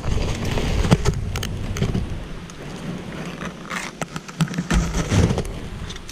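Leaves and branches rustling and scraping against a body-worn camera as someone pushes through dense undergrowth, with many sharp snaps and cracks of twigs and a low rumble of movement on the microphone. It is busiest in the first two seconds and calmer in the middle.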